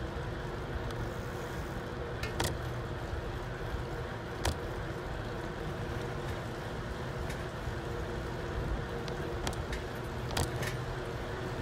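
Steady rolling road noise from a vehicle moving along a paved street, with a low rumble and a faint steady hum. A few sharp clicks or rattles sound now and then.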